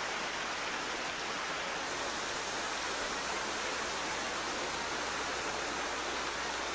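Steady rushing of a shallow stream running over rocks in a small cascade.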